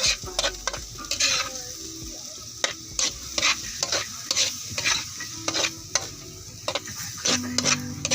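A utensil scraping and knocking against a frying pan as beefloaf and egg are stirred, in irregular strokes a few times a second, over a steady sizzle of frying.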